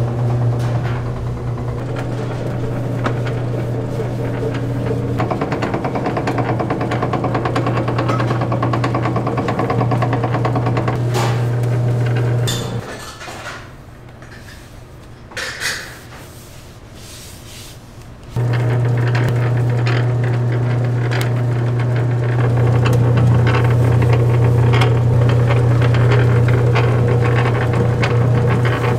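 Electric dough-sheeting roller machine running with a steady motor hum. It stops about halfway through and starts up again several seconds later.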